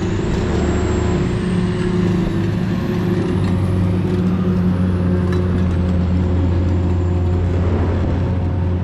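Industrial exhaust blower fan running with a steady, loud low hum: a deep tone with a second one about an octave higher. It is the constant hum the owner takes for a newly upgraded, more powerful blower fan.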